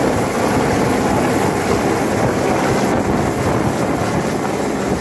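Helicopter hovering and lifting away with a loaded fertiliser spreader slung beneath it: loud, steady rotor and turbine noise, with rotor wash buffeting the microphone.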